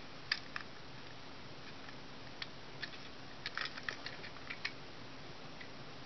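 Light plastic clicks and taps from a TrackMaster toy engine body being turned over in the hands, a quick cluster of them about three and a half seconds in, over a faint steady hum.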